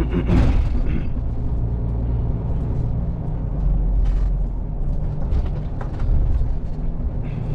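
HGV engine and road rumble inside the cab while driving, a steady low drone with scattered light rattles and a brief rush of noise just after the start.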